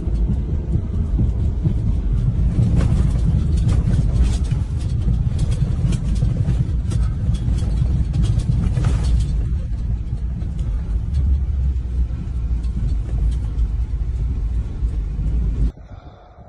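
Car driving, heard from inside the cabin: a steady low road-and-engine rumble, with a run of sharp crackles and clicks for several seconds in the middle. The rumble drops away suddenly near the end.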